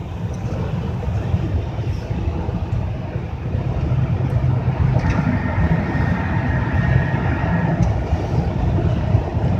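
Steady road and engine noise inside a car cabin at highway speed, a low rumble throughout.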